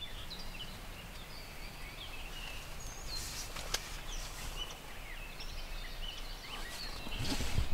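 Dawn chorus of songbirds: many short chirps and whistles over a steady low hiss. There is a single sharp click a little after halfway and a low rumble building near the end.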